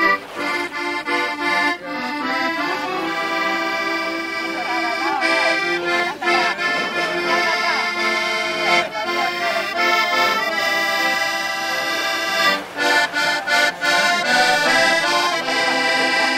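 Accordion played live: sustained chords and a melody line, with a few short breaks between phrases near the end.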